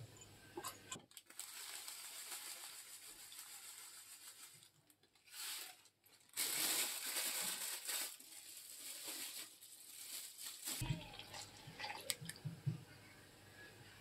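Dry ingredients, sugar and starch, being poured into an aluminium saucepan of cocoa powder: a soft hiss of granules falling, loudest in a stretch about halfway through, with some rustling and a few light clicks.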